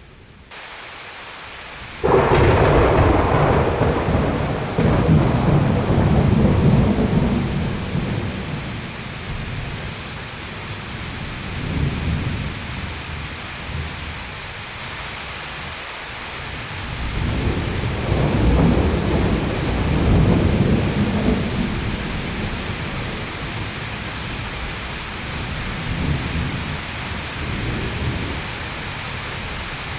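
Thunderstorm: steady rain with rolling thunder. A sudden loud thunderclap about two seconds in rumbles on for several seconds, followed by further rolls of thunder, the strongest in the second half.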